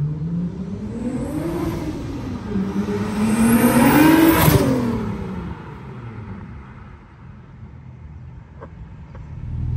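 Big-single-turbo, built 2.7-litre V6 of a 2001 Audi B5 S4 Avant accelerating past. The engine note climbs, dips and climbs again about two seconds in, is loudest as the car goes by, then drops in pitch and fades away.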